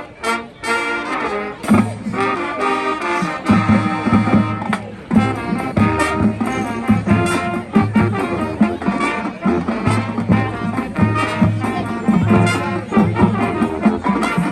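High school marching band playing loudly, brass leading over drumline percussion.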